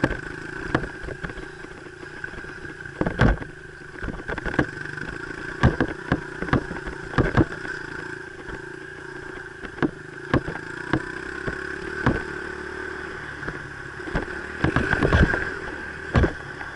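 Dirt bike engine running at a fairly steady pitch while riding a trail, with frequent sharp knocks and clatter from the bike over rough ground.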